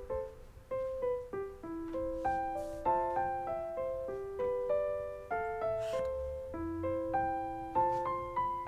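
Background piano music: a gentle melody of single struck notes, about two or three a second, each fading after it is played.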